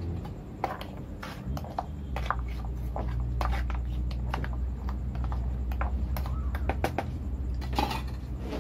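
Metal spoon and ice cubes clicking and knocking against a plastic food tub as papaya in condensed milk is stirred: a string of irregular sharp clicks, over a steady low hum.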